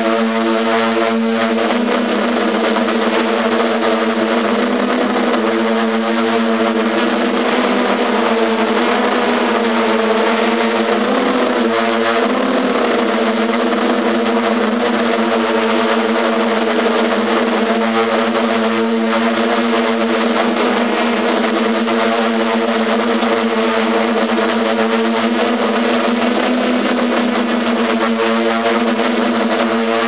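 Hexcopter's electric motors and propellers running, heard from its on-board camera as a loud, steady multi-tone buzz; the pitch wavers briefly about ten seconds in as the motor speeds shift.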